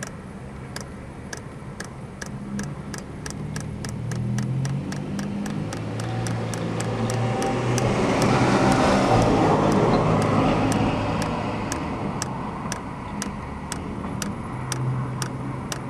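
Eberspächer diesel heater fuel dosing pump ticking steadily, about two to three clicks a second: the sign that the pump is now delivering fuel to the heater. Under it is a low hum, and a passing vehicle swells up and fades away around the middle.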